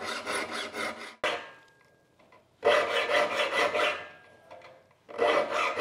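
A triangular saw file rasps back and forth across the steel teeth of a crosscut hand saw clamped in a saw vise: this is hand-sharpening of the saw, one tooth after another. There are three bursts of quick strokes, each over a second long, with short pauses as the file moves on to the next tooth.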